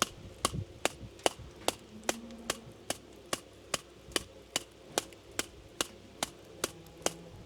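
Brush tapping back freshly pointed lime mortar joints in a stone wall: a steady run of sharp, even strikes, about two or three a second, stopping just before the end. The strikes compact the lime mortar and open its surface as it firms up.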